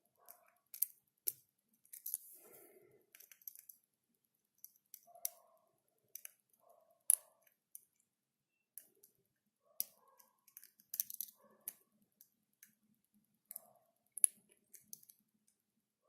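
Picking a Titan dimple Euro cylinder: irregular sharp metallic clicks and ticks with faint scraping as the pick works the pins in the keyway, the loudest clicks about a second, seven, eleven and fourteen seconds in.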